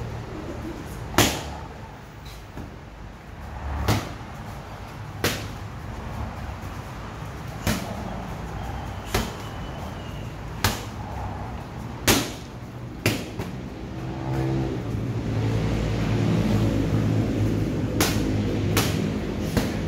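Boxing gloves smacking into focus mitts: about a dozen sharp slaps, a few seconds apart at first, then a quicker run of three near the end, over a steady low background hum.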